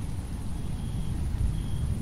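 Thunder rolling as a low, steady rumble, with rain falling as a faint hiss.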